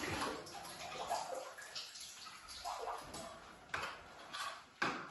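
Spring onions being rinsed under a running tap, the water running for about the first second and a half. Then quieter handling sounds with two sharp knocks near the end.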